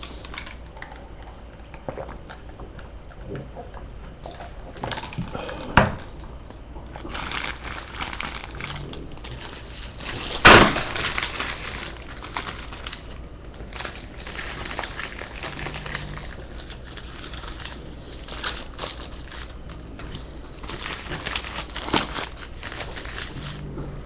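Handling noises on a desk as trading-card boxes and packs are moved: rustling with scattered clicks and knocks, the loudest a sharp knock about ten seconds in.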